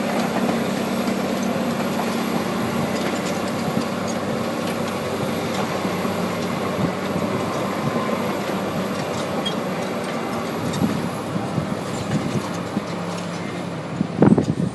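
Komatsu D65EX-15 bulldozer's diesel engine running steadily, with the clatter of its steel tracks, and a loud clank near the end.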